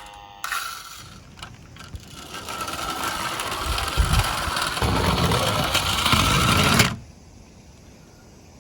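Toy cars running on a plastic slope track: a whirring, rattling noise with a steady high whine that builds up, then cuts off suddenly about seven seconds in.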